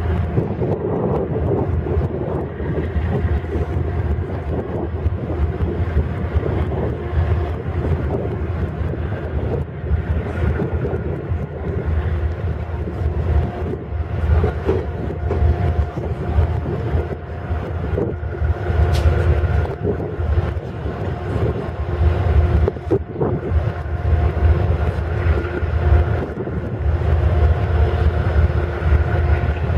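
Diesel locomotive engines running steadily: a deep rumble under a steady droning hum.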